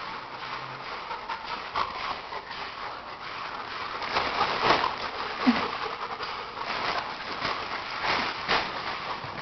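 An English bulldog puppy and a Labrador play-wrestling on a tiled floor: scuffling and scattered clicks of paws and claws on the tile, with dog breathing and snuffling.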